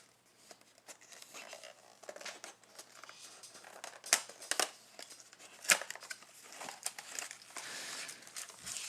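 Football trading card packs and their foil wrappers being handled: quiet crinkling with a few sharp clicks and taps, and a longer stretch of crinkling near the end.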